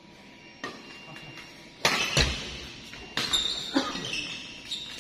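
Badminton rally: a run of sharp racket hits on the shuttlecock and footfalls on the court, the loudest with a heavy thud about two seconds in, then shoes squeaking on the court floor in the second half.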